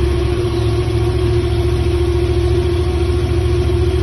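Yamaha MT-07's parallel-twin engine idling steadily just after starting. It is running on an immobiliser bypass kit fitted in place of a damaged ignition switch.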